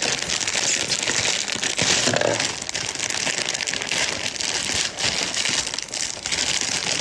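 Plastic candy packaging crinkling and crackling without a break as it is torn and pulled open by hand.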